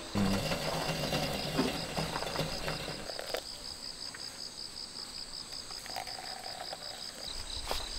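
Insects chirping in a steady, rapid, high-pitched pulse. Some knocking and rustling over it in the first three seconds.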